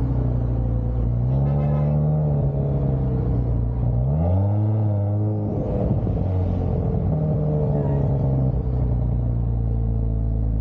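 Audi exhaust with a low, steady drone as the car drives slowly. The note rises twice, about a second in and more sharply about four seconds in, then drops back to a steady drone.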